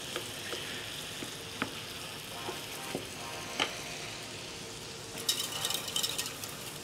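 Diced potatoes and vegetables sizzling in olive oil in a frying pan, stirred with a wooden spatula that knocks against the pan a few times. From about five seconds in, a utensil scrapes and clinks rapidly around a stainless-steel saucepan as a cream is stirred.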